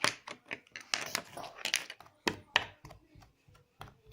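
Pink glitter slime being squeezed and worked by hand, giving a string of irregular wet clicks and pops.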